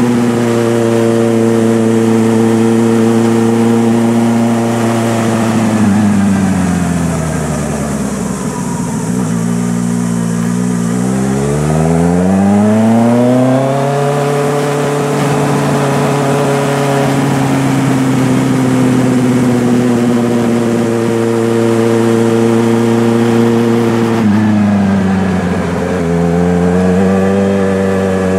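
An engine running with a steady pitch that slowly falls about six seconds in, stays low for a few seconds, then climbs back up. It dips and rises again near the end.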